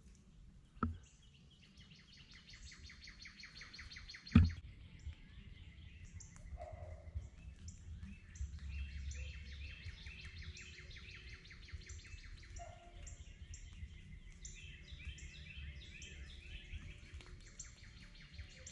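Wild birds chirping and trilling with rapid repeated notes, over a low rumble. Two sharp knocks come about one second and four and a half seconds in, the second the loudest sound.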